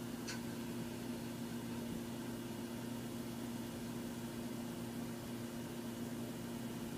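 Steady hum and hiss of a running PowerPC G4 Mac as it boots, made up of its fan and drive noise, with two even hum tones. A faint single tick comes shortly after the start.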